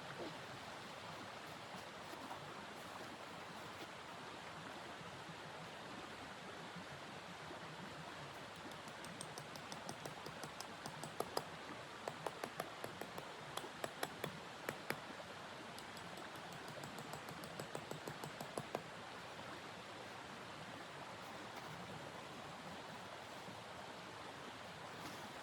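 Steady rushing noise of blizzard wind, with a run of scattered sharp clicks and ticks in the middle.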